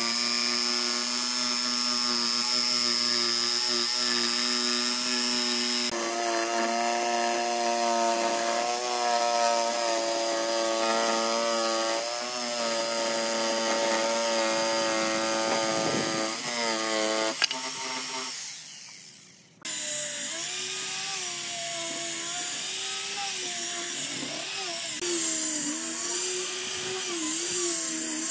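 Electric jigsaw running as it cuts a curve through pine boards, its motor whine shifting in pitch with the load, then winding down about eighteen seconds in. After an abrupt change, an angle grinder with a sanding disc runs on the pine tabletop, its pitch wavering as it is pressed on.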